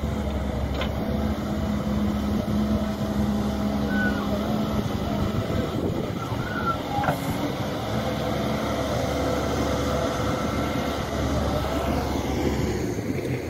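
Doosan DX140W wheeled excavator's diesel engine running steadily at close range as the machine works and moves, with a few faint brief squeaks above the engine note.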